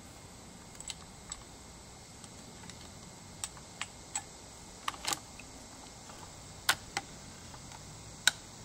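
A dozen or so short, sharp clicks at irregular intervals over a faint steady background, the loudest two coming late, about a second and a half apart.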